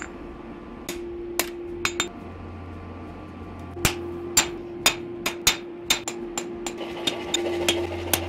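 Hand hammer blows on a red-hot knife blade on an anvil, each strike followed by the anvil's ringing tone. There are a few spaced blows at first, then from about four seconds in a steady run of about three blows a second, all over a steady low hum.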